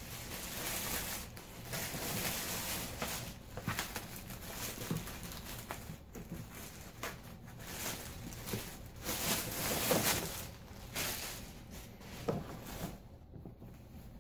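Thin plastic bag and wrapping being pulled and crumpled by hand, crinkling and rustling in irregular bursts that are loudest about two-thirds of the way through.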